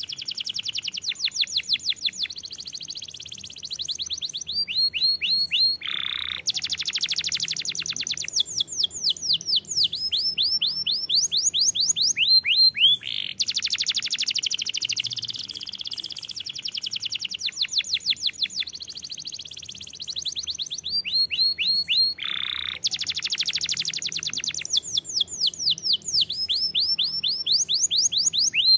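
Domestic canary singing a long, unbroken song of rapid trills and fast runs of repeated notes, many sweeping down in pitch, with a lower, deeper roll twice.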